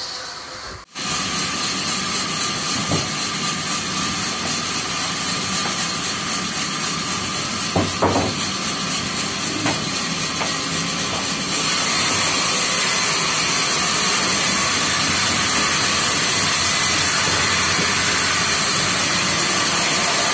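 Large industrial band saw running and ripping timber, a steady hissing saw noise with a faint steady tone. A few knocks come near the middle, and about halfway through the noise steps up, louder and brighter.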